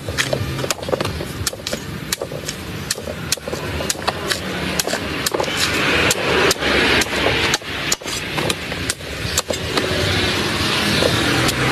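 Heavy cleaver chopping and shaving the husk off a young coconut on a wooden chopping block: a quick, irregular run of sharp chops, a few every second, over a steady background rumble.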